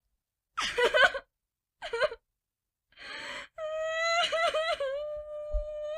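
A voice crying: two short sobbing bursts, a noisy breath in about three seconds in, then a long, high, wavering wail.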